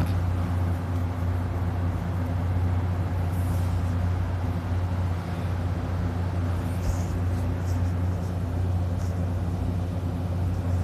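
A steady low hum that does not change, like a running fan or appliance motor.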